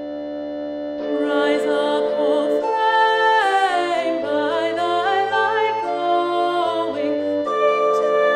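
Opening music: held organ chords, joined about a second in by a louder melody line with a wavering vibrato.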